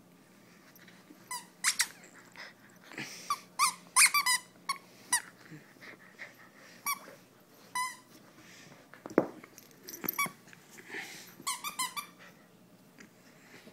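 A string of short, high squeaks, some with a rapid flutter, during German Shepherd puppy play, with a single thump about nine seconds in.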